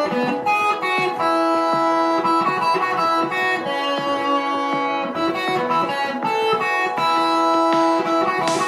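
Guitar music: plucked electric guitar notes in a melodic line.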